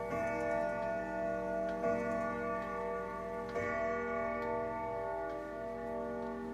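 Howard Miller grandfather clock striking the hour on its chime rods: three even strikes about a second and three-quarters apart, each one ringing on, the ring slowly fading after the last.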